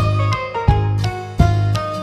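Background music with a steady beat, a strong low beat about every three quarters of a second under sustained melody notes.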